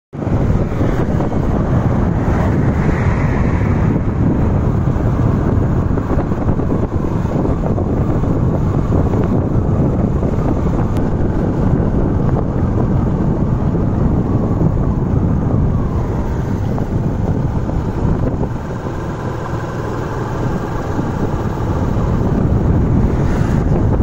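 Wind rushing over the microphone of a moving road vehicle, with the vehicle's running and tyre noise underneath. Steady and loud, easing slightly about three quarters of the way through before rising again.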